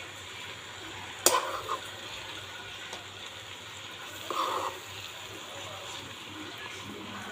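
Masala gravy with stuffed tinda sizzling and bubbling in a pan while a spatula stirs it. One sharp clack of the spatula against the pan comes about a second in, and a short louder stirring scrape comes about four seconds in.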